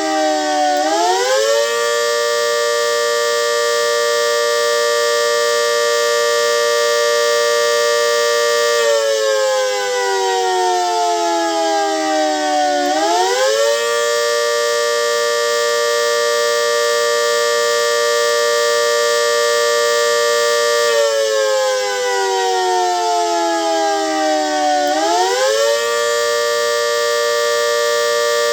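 GS CS-10V15QT outdoor warning siren sounding a two-note chord: it holds a steady pitch for about seven seconds, slides slowly down over about four seconds, then swings quickly back up to full pitch, twice. The siren has bad bearings.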